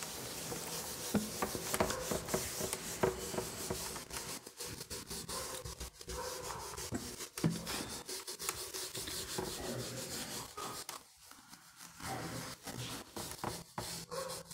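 Whiteboard eraser rubbing marker off a whiteboard in repeated scrubbing strokes, with a short pause about eleven seconds in.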